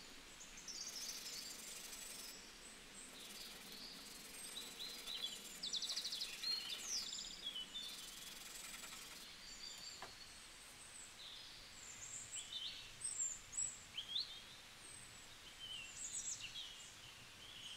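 Faint scratching of small wooden pieces being rubbed by hand on sheets of sandpaper, with birds chirping and trilling in the background.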